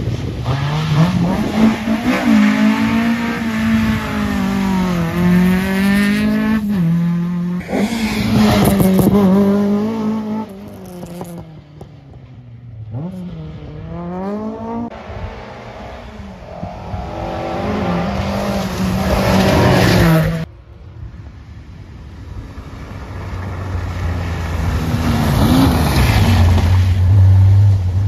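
Rally car engines at full throttle, the revs climbing and dropping again and again through gear changes as cars pass, in several short clips; the sound cuts off suddenly about twenty seconds in, and another engine then rises towards the end.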